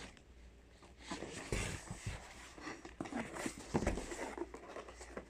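A cardboard laptop box and its packaging being handled and opened: rustling and scraping, with scattered clicks and a few dull thumps, about a second and a half in and again near four seconds.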